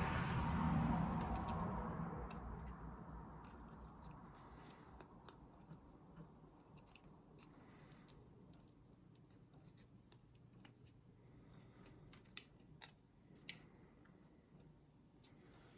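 Small tool clicks, ticks and scrapes as a Samsung A12 smartphone is pried apart, its plastic parts snapping and scratching under a pry tool. A louder noisy swell fills the first two seconds or so and fades, and a sharp click comes near the end.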